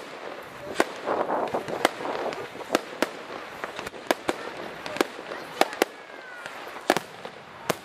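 Aerial fireworks shells bursting in an irregular series of about a dozen sharp bangs, some in quick pairs.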